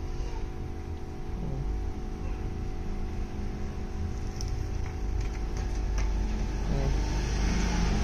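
A steady hum of several fixed tones over a low rumble, like a small motor or electrical appliance running in the room. It grows slightly louder toward the end.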